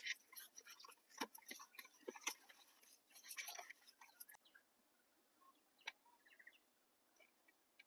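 Faint scattered clicks and knocks for about the first half. Then, after an abrupt cut, it is quiet apart from faint short bird chirps.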